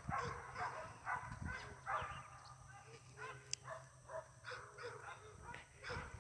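A dog barking over and over in short yaps, about two a second, faint.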